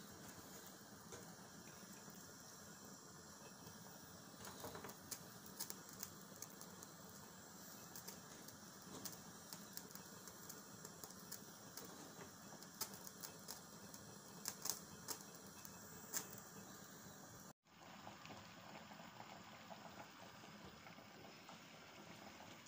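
Pork pieces frying in hot oil in a frying pan: a faint sizzle with scattered crackles and pops. After a sudden break near the end, a faint steady hiss goes on without the pops.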